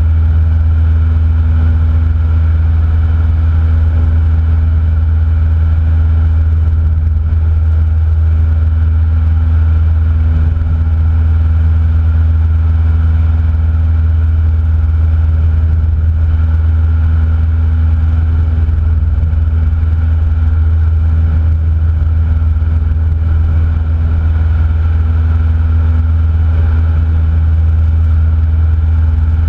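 Cessna 172N's Lycoming O-320 four-cylinder engine and two-blade propeller running at steady power, a loud, even drone with no change in pitch.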